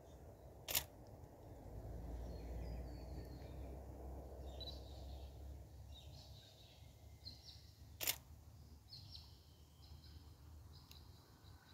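Two camera shutter clicks, about seven seconds apart, from stills being taken. Between them come faint, short bird chirps and a low rumble that swells and fades in the first half.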